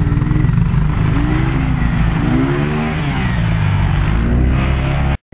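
ATV engine revving through muddy ruts, its pitch climbing and dropping again around the middle, over a steady hiss of mud and water spraying from the tyres. It cuts off suddenly near the end.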